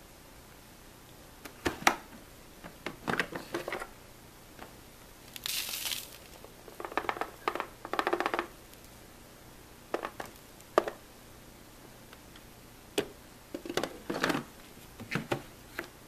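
The clear plastic dust cup of a Bissell bagless upright vacuum is handled, emptied and refitted: a series of sharp plastic clicks and knocks with short bursts of fumbling, and a brief rustling hiss about five and a half seconds in.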